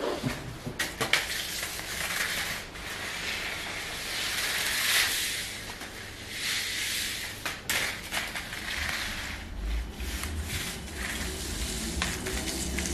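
Irregular rustling and scratching from a home-made wand cat toy being dragged and swished over a rug while cats pounce on it, with scattered light knocks and taps.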